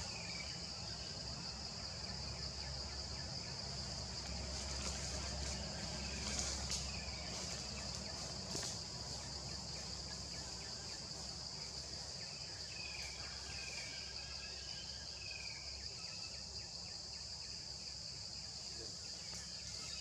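Steady high-pitched insect chorus buzzing in tropical forest, with a few short, falling bird chirps about six seconds in and again near the middle, over a low background rumble.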